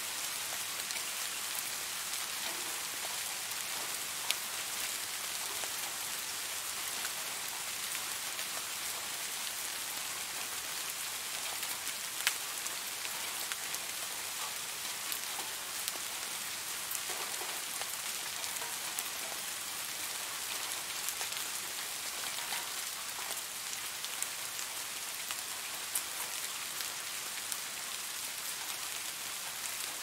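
Steady rain falling, an even hiss with scattered sharper ticks of single drops striking close by.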